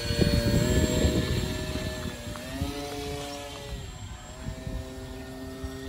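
Brushless electric motor and propeller of a homemade foam RC trainer plane running under power as it is hand-launched and flies off: a steady hum whose pitch shifts up and down a little about two seconds in, growing fainter as the plane gets farther away. A low rumble sits under it in the first second or so.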